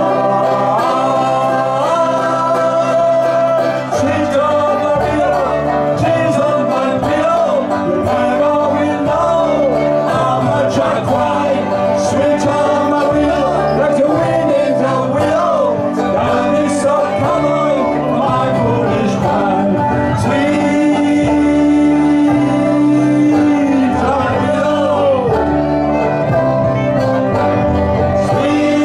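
Live bluegrass band playing an upbeat song: guitar, upright bass, fiddle and keyboard, with a man singing.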